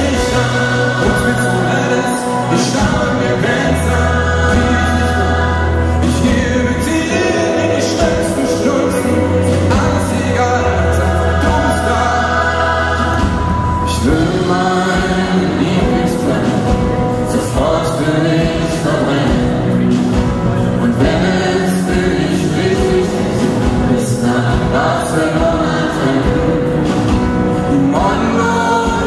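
Live pop-rock band with a gospel choir: a lead singer and the choir singing over guitar, bass and drums. Long held bass notes give way to a steady driving beat about halfway through.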